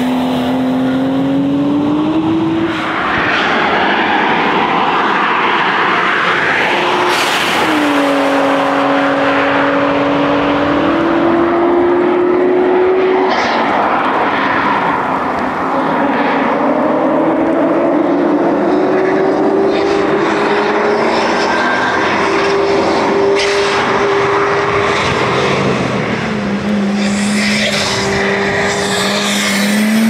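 A 1992 Nissan Skyline GTS-t's turbocharged straight-six is driven hard through the gears. The engine note climbs, then drops sharply at each upshift, several times over.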